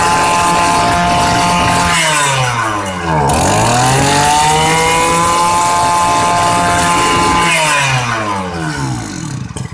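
Mitsubishi T240 two-stroke brush-cutter engine with a 44 mm piston, running at high revs. It drops off briefly about two seconds in and revs straight back up, then winds down and stops near the end.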